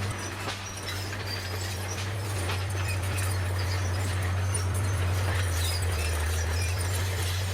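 Bulldozer's diesel engine running at a steady low drone, with light metallic clicks and clinks throughout, typical of the crawler working.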